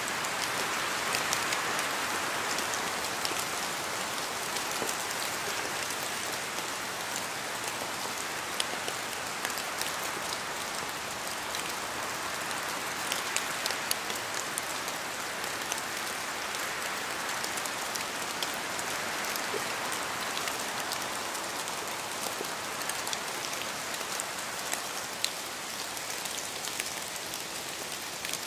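Steady rain falling on a surface, a constant hiss with many individual drops ticking through it.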